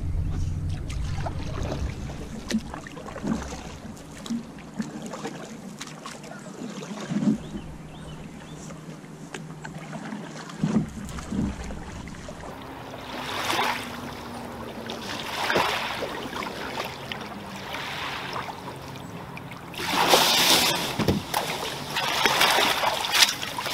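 Canoe paddle strokes in lake water, a swish and splash about every two seconds, then louder splashing near the end as a person steps out of the canoe into shallow water.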